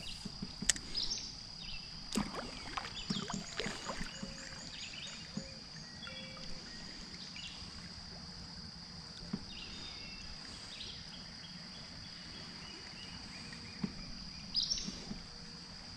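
Outdoor ambience on a kayak on a small creek: a few sharp knocks and rattles of gear against the kayak in the first four seconds and again near the end, over birds calling and a steady high-pitched whine.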